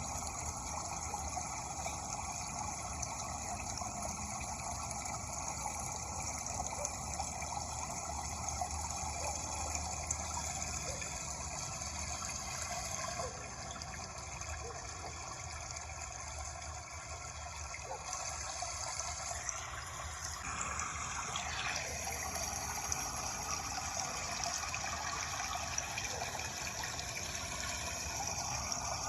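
Running water flowing steadily, a continuous even wash of water noise.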